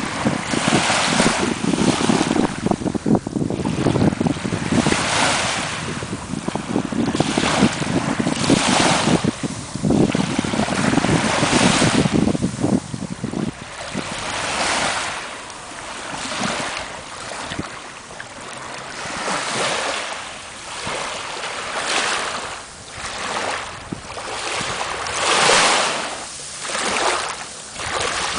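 Small waves lapping on a sandy shoreline, each wash swelling and falling away about every two seconds. Wind buffets the microphone with a low rumble through the first half, then drops off.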